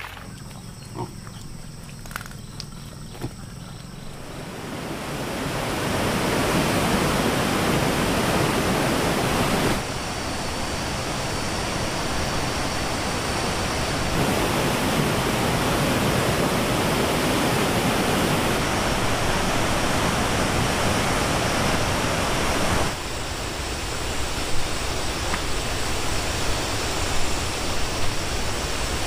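A steady rushing noise like running water, fading in over the first few seconds and changing level abruptly several times; a few faint clicks before it rises.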